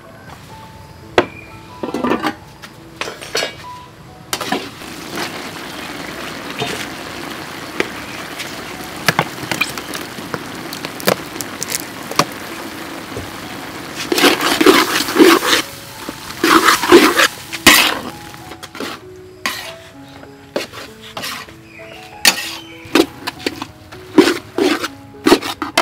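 Background music over kitchen clatter: clicks and clinks throughout, a steady rush of water-like noise from about four seconds in, and louder noisy bursts about two-thirds of the way through.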